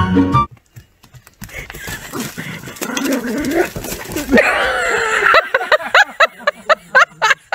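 A small dog yapping in a fast run of short barks, several a second, in the second half, after a scuffling noise and a loud wavering cry. A snatch of music cuts off in the first half second.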